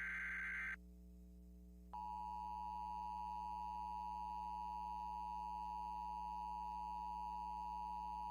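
The tail of an Emergency Alert System SAME header data burst cuts off under a second in. About a second later the EAS two-tone attention signal (853 and 960 Hz) starts and holds steady.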